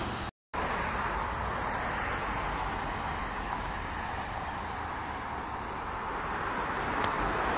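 Steady outdoor road-traffic noise, a hiss of passing cars that swells slightly near the end; the sound cuts out completely for a moment near the start.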